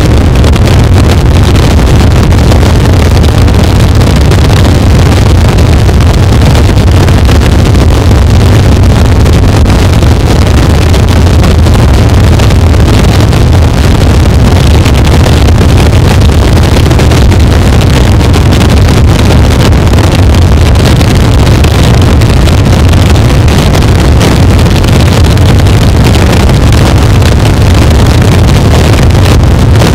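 Harsh noise wall: a dense, unchanging wall of distorted, crunchy electronic noise at full loudness, heaviest in the bass, with no breaks or shifts.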